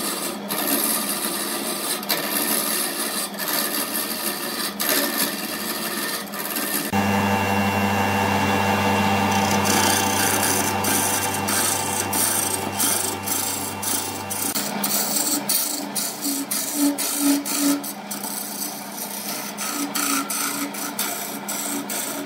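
A turning gouge cutting into a large spinning wooden blank on a Burt wood lathe. It makes a continuous, rough, rasping cutting noise, peppered with irregular ticks as the shavings fly off. A deeper steady hum sits underneath for several seconds in the middle.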